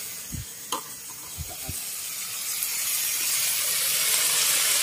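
Wok of freshwater snails (kuhol) cooking over a fire, hissing and sizzling steadily; the hiss grows louder after about two seconds. A few soft thumps and a sharp click come in the first couple of seconds.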